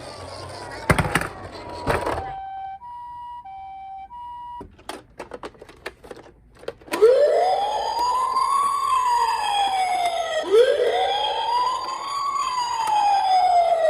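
Toy ambulances' electronic sirens: a siren gliding down and two sharp clicks, then a two-note high-low 'pee-po' tone for about two seconds. A run of plastic clicks follows, then from about halfway a wailing siren rising and falling about every three and a half seconds, with other sirens sweeping over it.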